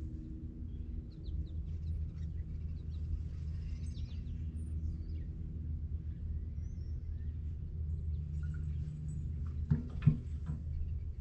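Birds chirping over a steady low machine hum, with two sharp knocks close together near the end.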